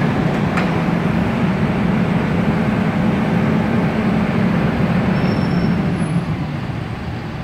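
Diesel engine of a high-reach demolition excavator running steadily with a low hum, easing off near the end. There is a single sharp knock about half a second in.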